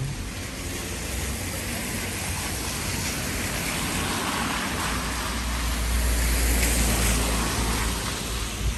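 A car driving along a wet street, its tyres hissing on the wet road with a low rumble that swells toward the end and then eases.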